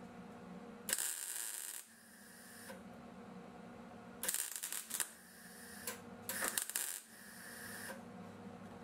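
Wire-feed (MIG) welder crackling and sizzling as it lays short tack welds on a thin steel patch panel. There are three separate bursts: about a second in, around four seconds, and around six to seven seconds. A low steady hum runs underneath.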